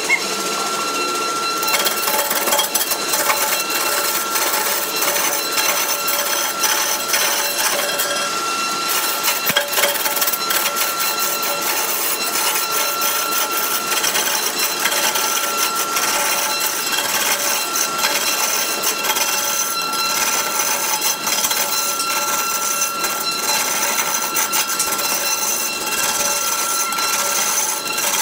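Wood lathe running while a hand-held turning tool cuts into a large spinning wooden blank: a continuous rough scraping and chattering of the chisel on the wood over a steady high whine from the machine. The cutting grows harsher about two seconds in.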